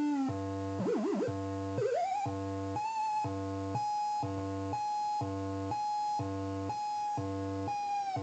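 Circuit-bent doll head's four oscillators droning in raw electronic tones, chopped into a steady pulse a little under two beats a second over a low buzz. About a second in, one tone warbles and then sweeps upward, settling into a steady higher pitch as the hand works the photosensor eyes and knob horns.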